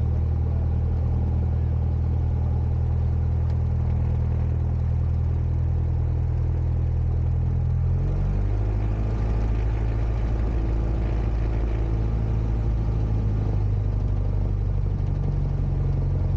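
Cessna 172's piston engine and propeller running at low taxi power, heard from the rear seat as a steady low drone; the engine note shifts to a slightly different pitch about halfway through.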